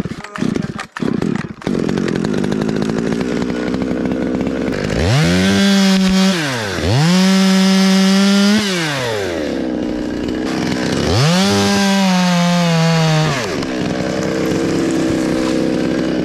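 Chainsaw running, uneven for the first second or two, then steady, and revved up to full throttle three times, dropping back to a lower speed between.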